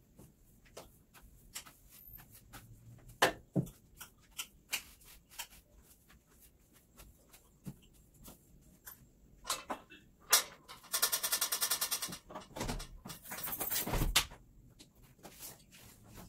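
Household cleaning: scattered light knocks and clicks of things being handled and moved. About two-thirds of the way through come two short stretches of harsh scraping noise, the loudest sounds here.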